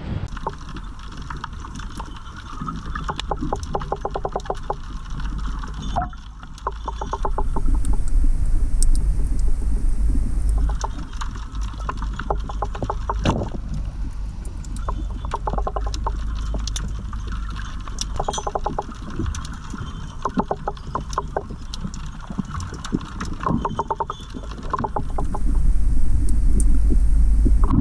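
Sound picked up underwater by a submerged action camera in its housing: a steady low rumble of water against the case, with clusters of rapid clicks and crackles. Twice, at about eight seconds in and again near the end, a louder rushing swells up for a few seconds.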